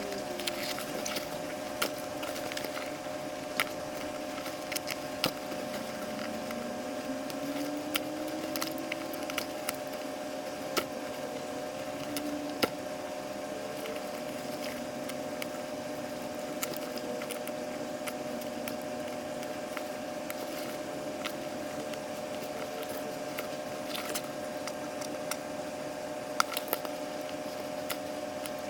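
Sped-up handling sounds of the old glued-in latex neck seal being cut and peeled off a drysuit: many quick clicks and crackles over a steady hum.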